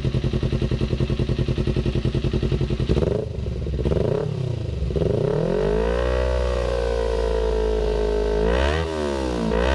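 Kawasaki Ninja 250 FI parallel-twin engine through a DX Generation RVR short full-system aftermarket exhaust, idling with an even pulse, then blipped twice about three seconds in and revved up to its upper limit, held there for a few seconds, dropped back and blipped once more near the end.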